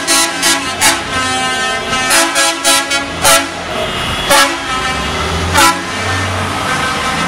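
Horns tooting in short blasts: a quick cluster of toots early on, another of four about two seconds in, then single toots near the middle and about two-thirds through, over a steady background drone and a low vehicle rumble.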